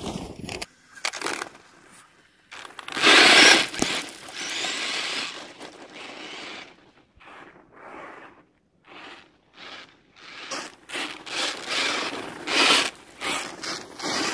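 Tyres of a radio-controlled monster truck scraping and crunching through snow and loose gravel in uneven bursts as it accelerates and slides. The loudest burst comes about three seconds in.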